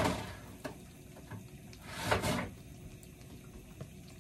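Rummaging in an open refrigerator: a short sliding scrape at the start and another about two seconds in, as items or a fridge drawer are moved.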